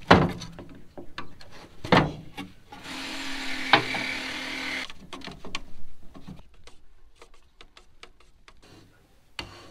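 Metal paint tin being worked open with a screwdriver: two sharp metallic knocks. A small power tool then runs steadily for about two seconds, followed by light clicks and scraping.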